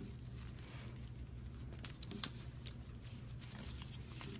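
Faint rustling and scattered light clicks of gloved fingers pressing and smoothing down an adhesive port dressing, over a steady low hum.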